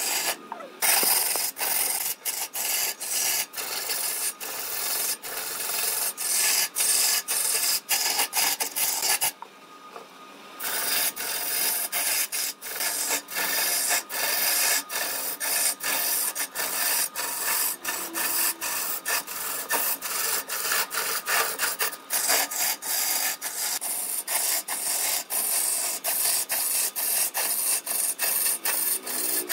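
Long-handled turning chisel cutting into a large log spinning on a wood lathe: a continuous rasping scrape as shavings spray off, broken by many very short gaps. About nine seconds in, the cutting drops away for about a second.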